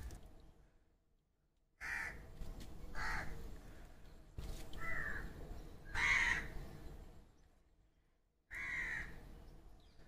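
Crow cawing outdoors: five short, harsh caws a second or two apart.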